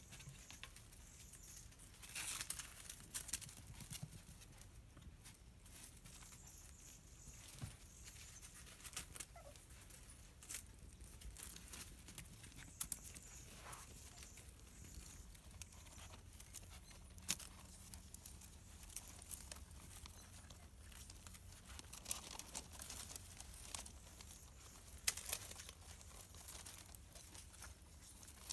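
Scattered light clicks and scuffs of six-week-old Scottish terrier puppies' paws and claws moving on a concrete walkway and on loose gravel, over a faint low steady hum.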